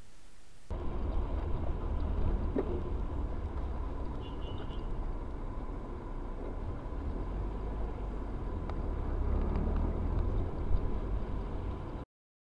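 Driving noise picked up by a car dashcam: a steady low rumble of engine and tyres with a faint constant whine. It starts abruptly after a second of hiss and cuts off abruptly near the end, with a brief run of faint high beeps about four seconds in.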